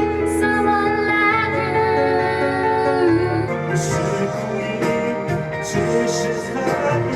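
Karaoke: a pop song's backing music playing with a voice singing over it.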